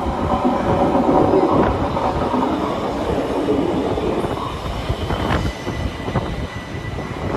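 Southeastern electric multiple-unit train running into the platform and passing close by, a continuous rail rumble. From about five seconds in, wheels click over rail joints and a thin, steady high whine comes in.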